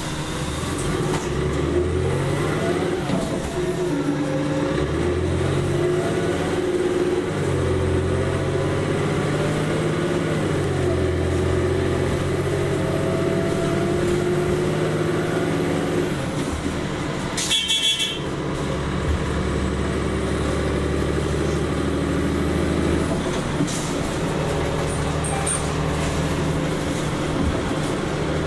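Cummins ISL-G natural-gas engine and Allison B-400R transmission of an Orion VII NG CNG bus, heard from inside the passenger cabin while the bus is under way. The engine's pitch shifts up and down in several steps as the bus changes speed. About two-thirds of the way through there is a short burst of noise.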